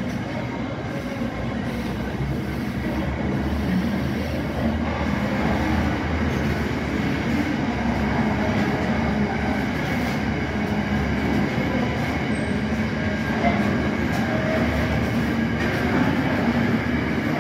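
Container wagons of a freight train rolling past on the viaduct: a continuous rumble of steel wheels on rail, growing slightly louder.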